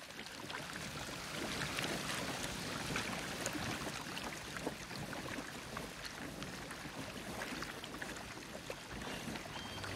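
Gentle sea water lapping and splashing against a rock shore, full of small drips and trickling clicks. It fades in at the start.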